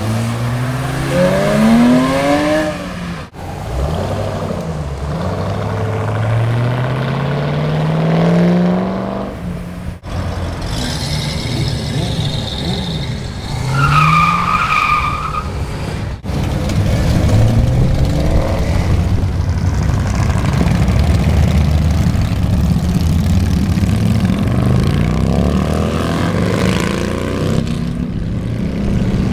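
Performance cars accelerating hard away one after another. The first is a Porsche 911 whose engine revs climb and drop back at each upshift; a classic Ford Mustang follows, and a dense low engine sound carries the latter half. A short high squeal comes about halfway through.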